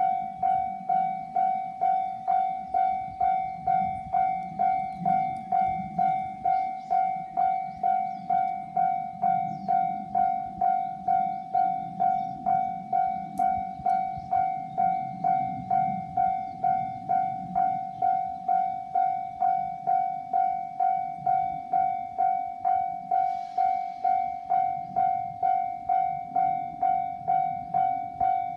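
Japanese railway level crossing's electronic warning bell ringing in an even, repeating clang of about two strokes a second: the signal that a train is approaching or passing.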